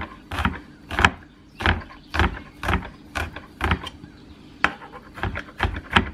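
Chef's knife chopping garlic cloves on a cutting board, the blade knocking on the board about twice a second and a little faster near the end.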